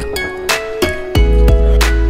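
Background music: held plucked notes over a deep bass beat.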